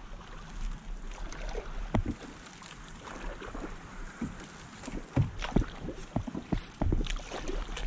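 People wading through shallow marsh water and reeds: irregular splashing steps and swishing stems.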